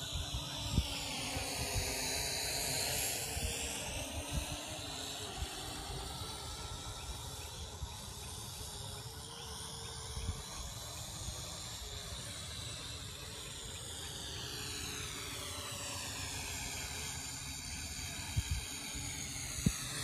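Syma X8C quadcopter's motors and propellers whining in flight, the pitch sliding down, back up, then down again as the drone moves. Wind buffets the microphone.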